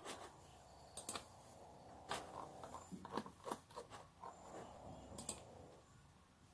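Faint scattered clicks and taps with light rustling, handling noise from the phone that is filming.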